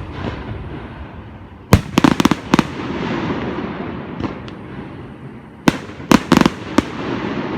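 Fireworks bursting overhead: two volleys of sharp bangs, the first about a second and a half in and the second near the end, over a steady noisy background.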